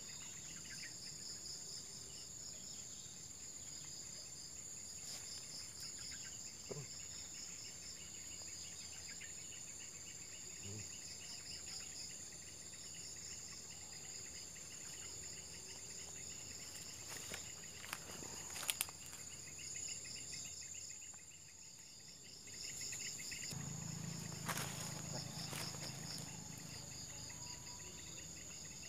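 Insects calling in a steady chorus: a continuous high whine with rapid pulsing trills under it. A quick pair of sharp clicks stands out about two-thirds of the way in, and a short stretch of low rustling noise follows near the end.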